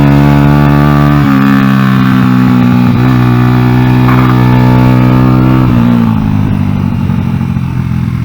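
Salvaged Honda XR100 single-cylinder four-stroke engine in an NSF100 pit bike, running at steady throttle on track. Its note changes about a second in, drops away from about six seconds as the throttle closes, and picks up again at the end.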